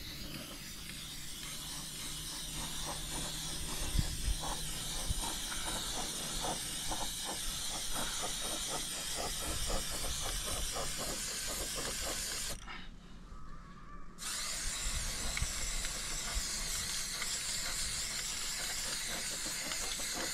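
Paintbrush scrubbing paint onto bare wooden door boards: a dry, hissing rasp in repeated back-and-forth strokes, with a short pause a little past halfway.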